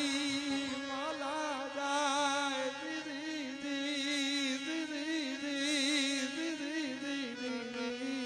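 Gujarati devotional folk music: a single slow melody line that bends and wavers in pitch, joined about two seconds in by a steady low drone.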